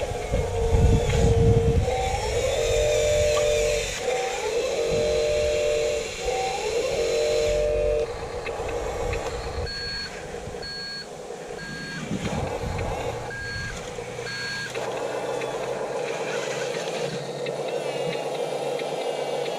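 Radio-controlled construction vehicle running, its motor whine rising and falling in pitch in short steps as it works. About ten seconds in, a series of short reversing beeps starts, evenly spaced.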